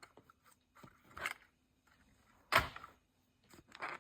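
Handling noise: three short knocks and scrapes, the loudest about two and a half seconds in, with faint ticks between.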